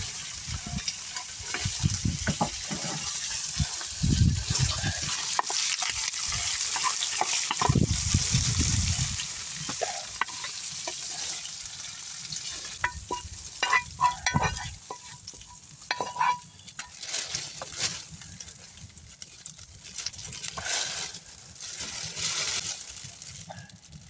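Meat sizzling as it fries in a pan and is stirred, with a utensil scraping and clinking against the metal; a quick run of sharp taps and short ringing pings comes about halfway through.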